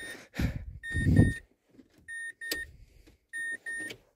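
Mazda 3 warning chime beeping in quick pairs, a pair about every second and a quarter. Low thumps of handling about a second in are the loudest sound.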